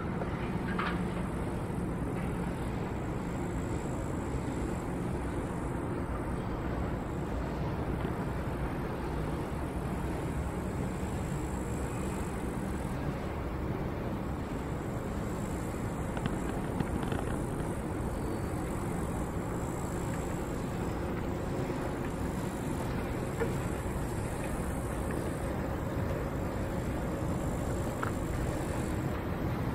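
Steady low noise of a ride down in a Doppelmayr two-seat fixed-grip chairlift, with a faint hum under it.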